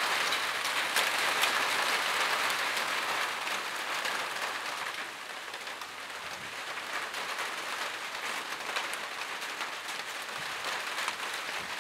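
Heavy rain falling on the roof of a small shelter: a steady hiss of dense drops with many small taps, easing slightly about five seconds in.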